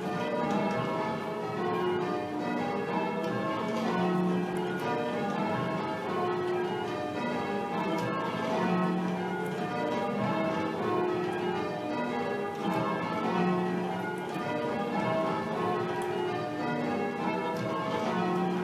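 Full-circle church tower bells ringing call changes: the bells strike one after another in steady, evenly spaced rows, each stroke ringing on into the next. The deepest bell stands out about every four and a half seconds.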